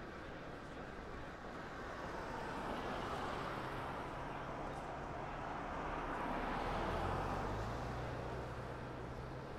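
City street traffic: cars passing with a steady low engine hum, the noise swelling about three seconds in and again about seven seconds in, when the hum steps up in pitch.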